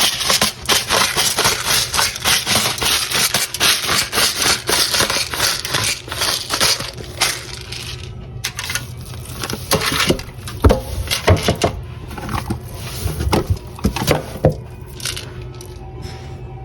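Pepper grinder grinding pepper in a dense, rapid crackle for the first half, then scattered knocks and handling clicks.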